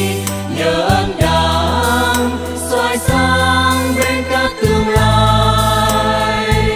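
A mixed choir of women and men singing into microphones over an instrumental accompaniment with held bass notes.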